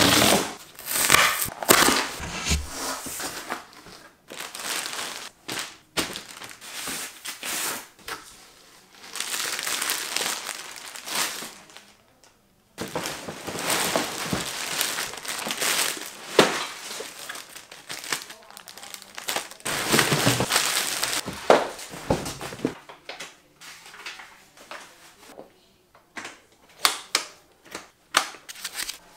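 Unboxing sounds: tape on a cardboard box being cut and the box handled, then plastic wrapping crinkling and rustling as the stroller parts are pulled out. Scattered sharp clicks and knocks of plastic parts come near the end.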